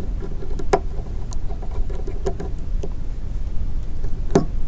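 Small clicks and ticks of a screwdriver tip and a smartphone's plastic housing being handled while tiny screws are taken out, with one louder knock near the end, over a steady low rumble.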